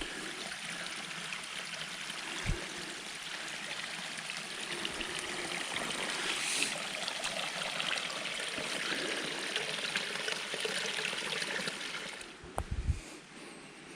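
A small mountain stream running and trickling, swelling through the middle and fading about twelve seconds in. A single low thump comes early on, and a short cluster of low thumps comes near the end.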